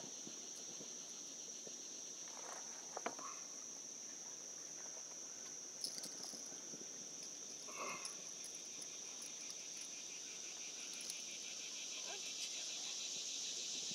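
Steady high-pitched chorus of insects that grows louder, with a pulsing layer joining near the end. A few faint clicks and rustles come from handling the landing net.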